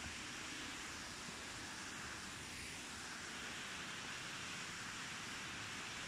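Steady rush of a shallow stream running over stones.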